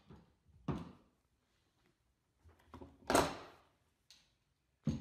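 A few scattered knocks and thuds against quiet, the loudest about three seconds in with a short fading tail.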